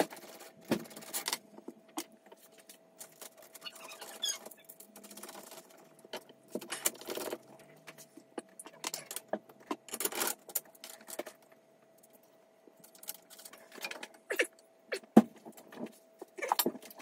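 Aluminium antenna element rods clinking and rattling as they are handled and pushed into plastic clips on a Yagi antenna's boom, with irregular clicks and short scrapes. A faint steady hum runs underneath.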